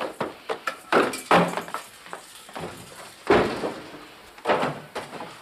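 Wooden drawers and cabinet doors being opened and shut during a search, a string of knocks and thumps with the heaviest about three seconds in.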